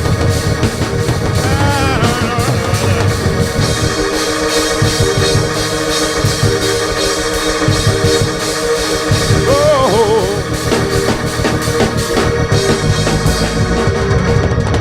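Church band music with organ and drum kit playing loudly, and a voice briefly singing out about two seconds in and again around ten seconds.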